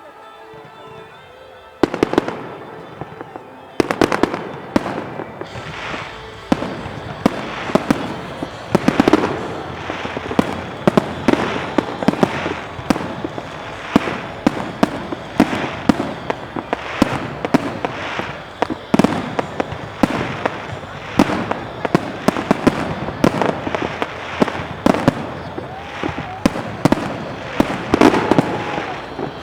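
New Year fireworks display: after a quieter first two seconds, a dense, continuous barrage of sharp bangs and crackles from bursting shells begins and keeps going.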